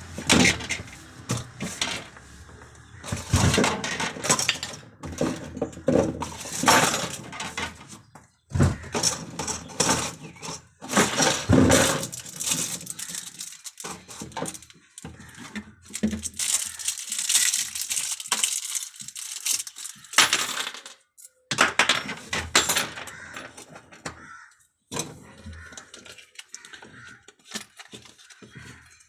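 Irregular clicks, knocks and rattles of hands working small metal parts while a new refrigerator thermostat's wire terminals are connected and the thermostat is fitted.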